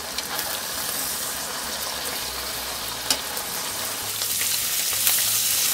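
Thin slices of marinated beef sizzling in hot oil in a frying pan, with a few sharp clicks of metal tongs against the pan as the slices are turned. The sizzle grows louder about four seconds in.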